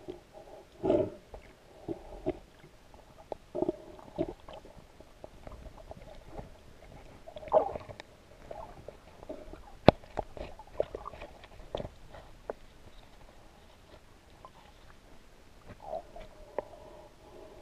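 Muffled underwater sound picked up by a camera held under the surface of the lake: irregular sloshing and rumbling water movement with scattered knocks, and one sharp click about ten seconds in.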